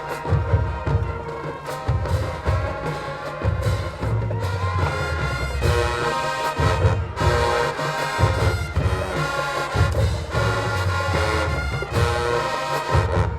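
Marching band playing: brass chords over a pulsing low beat.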